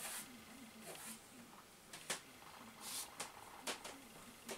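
Faint handling sounds of hands on a Samsung Xpress SL-C480W laser printer's plastic casing: a few light clicks and taps with soft rubbing between them.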